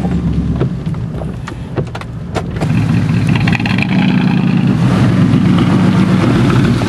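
Pickup truck engine revving as the truck drags a fallen tree, hooked to it, off the road, getting louder about two and a half seconds in. Sharp cracks and snaps sound in the first couple of seconds.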